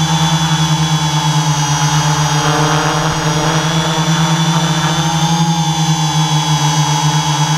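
Multirotor drone's electric motors and propellers whining steadily, heard close up through the camera carried on the drone, with small shifts in pitch.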